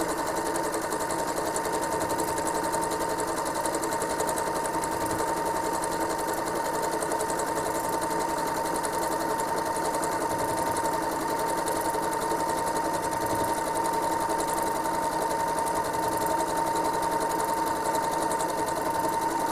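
Home sewing machine running steadily at speed, stitching continuously while free-motion quilting a ribbon candy pattern, with a steady whine from its motor.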